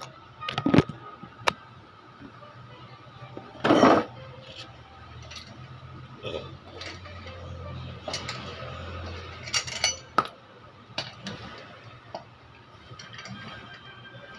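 Metallic clinks and knocks of a lug wrench being fitted to and worked on a car wheel's lug nuts, with loosened nuts set down on the concrete floor. About a dozen separate sharp strikes, the loudest a heavier knock about four seconds in.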